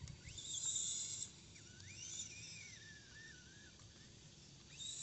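Axial SCX24 micro crawler on portal axles, its small electric motor and gears whining as it drives. The pitch rises and falls with the throttle in three runs.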